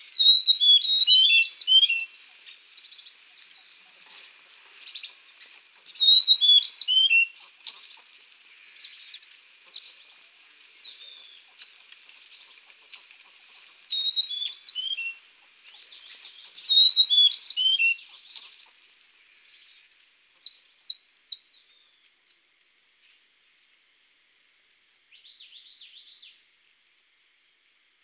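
Songbirds singing in short bursts of rapid high chirps every few seconds, thinning to a few separate single high notes near the end.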